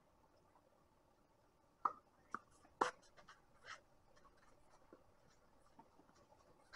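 Tennis rally: a few sharp pops of a ball struck by rackets and bouncing, the loudest about three seconds in, then a weaker hit. Faint scuffs and ticks of shoes moving on the court follow.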